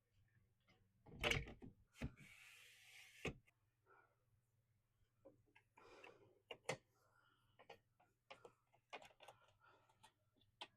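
A newly built window screen being worked into a window frame: a few sharp knocks and bumps, a short scraping hiss, then scattered light clicks and taps as the frame is pushed and seated.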